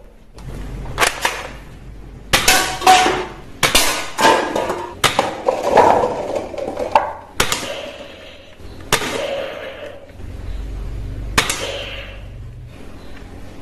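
Toy dart blaster fired again and again, a sharp snap every second or two. Paper cups and tin cans clatter as darts knock them over.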